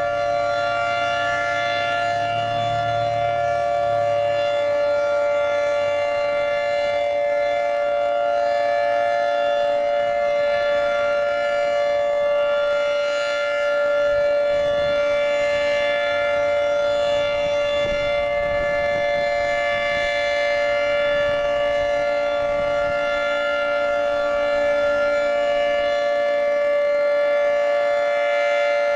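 Federal Signal 2T22 dual-tone electromechanical warning siren sounding a steady two-note chord at full speed during a siren test, swelling slightly in loudness every few seconds as it rotates.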